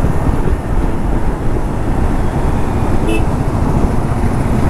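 Motorcycles running at highway speed: a steady low engine rumble with wind noise on the rider's microphone. A short beep sounds about three seconds in.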